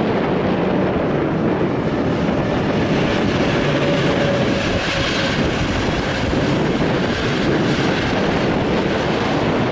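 Intercity passenger train hauled by an EU07 electric locomotive passing close by: a loud, steady rush of coaches and wheels running on the rails.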